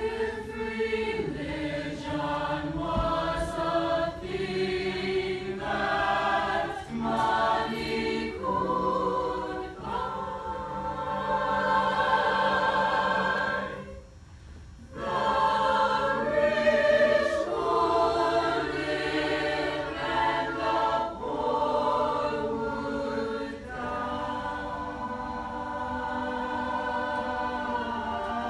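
Mixed choir of young men and women singing in sustained chords, breaking off for about a second halfway through before going on.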